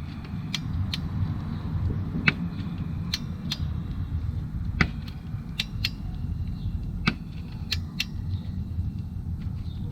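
Hand ratchet wrench clicking in short, irregular strokes as a timing-chain tensioner bolt is run down and tightened, over a steady low hum.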